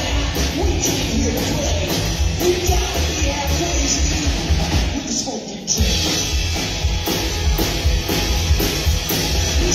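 Live rock-and-roll band playing an instrumental passage on upright bass, drum kit and electric guitar, with a short break about five seconds in before the band comes back in.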